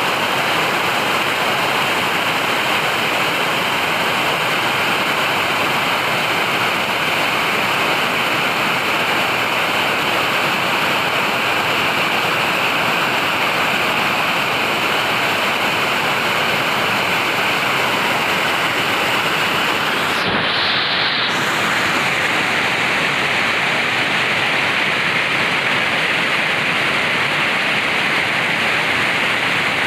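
Steady rushing water, a dense, even hiss. About two-thirds of the way in it briefly changes, and after that it is slightly duller.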